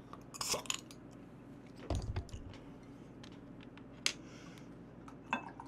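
Metal crown cap of a glass beer bottle prised off with the teeth, with a short pop and hiss about half a second in. A dull thump follows near two seconds, then a couple of light single clicks.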